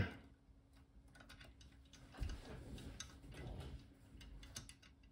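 Faint, irregular small metallic clicks of a front-tensioning disc detainer pick being inserted and turned in a Solex R40 brass disc detainer padlock, with soft handling noise in the middle.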